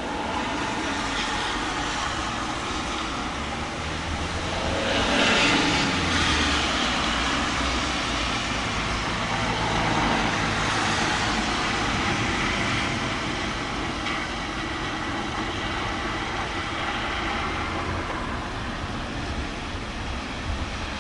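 Thunderstorm: low rolling thunder over a steady hiss, swelling to a peak about five seconds in and then slowly dying away.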